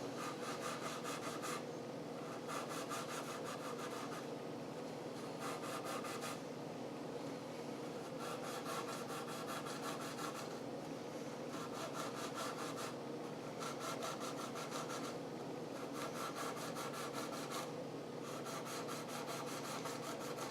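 Green abrasive scouring pad rubbed lightly back and forth over a wooden instrument's finish. The scrubbing comes in spells of a second or two, each made of quick strokes, as it lifts white chrome-polish residue off the wood.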